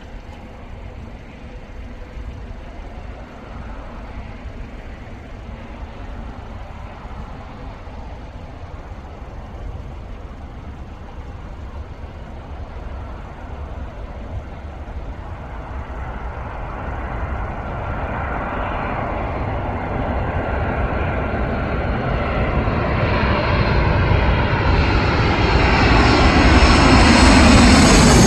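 Boeing 737-800 jet airliner approaching, its CFM56 turbofan engines growing steadily louder throughout, with a rising whine filling in during the second half as it nears.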